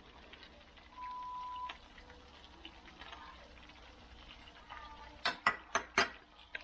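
A short steady electronic beep about a second in, then four sharp knocks in quick succession near the end as the small sauce dish is tapped against the stainless steel wok to empty it.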